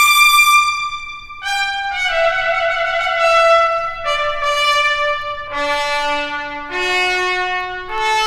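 Trumpet playing a slow line of long held notes, one at a time, stepping mostly lower in pitch, with a short break about a second in.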